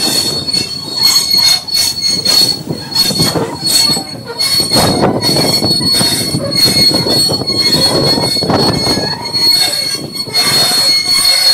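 Railway carriage running along the track, its wheels clattering and knocking on the rails with a steady thin high squeal of wheel on rail.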